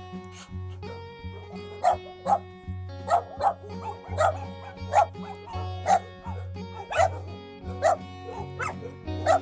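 A dog barking in short sharp barks about once a second, over background music.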